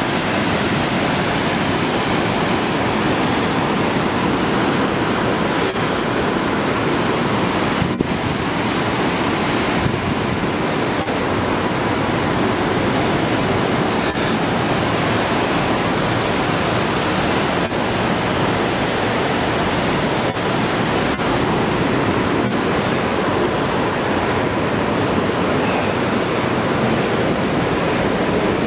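Mountain river rushing through a narrow rocky gorge, a loud, steady roar of white water with no let-up.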